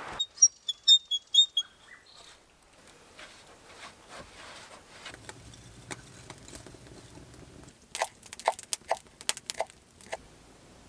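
A bird gives a quick series of high chirps, followed near the end by a run of sharp knocks or clicks.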